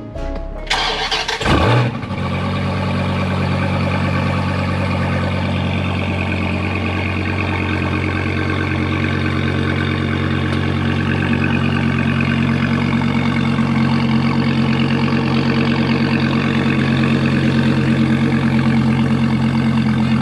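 A vehicle engine starts about a second in and settles into a steady idle.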